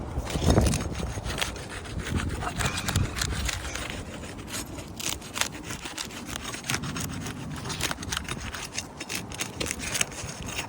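A roofing tool scraping and prying under old 3-tab asphalt shingles to work them loose from their nails. It makes a rapid run of gritty scrapes and small clicks, with a heavier bump about half a second in.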